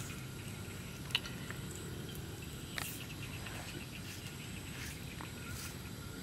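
Insects chirping steadily in the background, with a sharp click about a second in and a softer one near three seconds.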